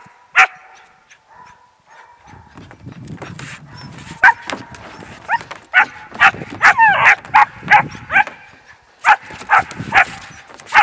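Three-month-old German Shepherd puppies barking and yipping in play: one bark near the start, then from about four seconds in a quick run of loud, high-pitched barks and yips, about two a second.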